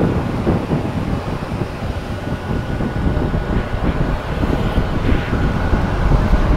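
A vehicle running with heavy wind buffeting the microphone: a steady, loud low rumble.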